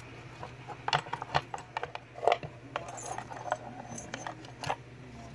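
Scattered light metallic clicks and clinks of keys and lock hardware being handled, with a few sharper knocks, over a faint steady low hum.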